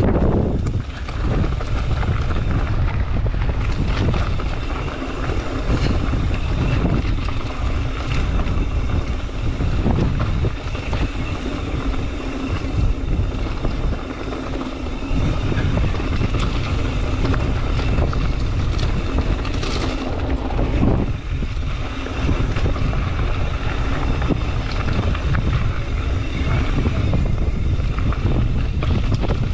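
Ibis Ripley V4 mountain bike rolling along a dirt and rock trail, heard from an action camera riding with it: wind buffeting the microphone over the rumble of the tyres, with rapid clicks and rattles from the bike on rough ground.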